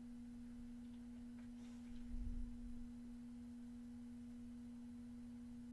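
Faint steady hum: a single low tone with a fainter overtone, with a brief low rumble about two seconds in.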